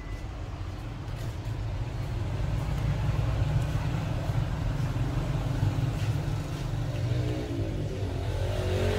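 Low, steady rumble of a running motor vehicle engine, getting a little louder after about two seconds.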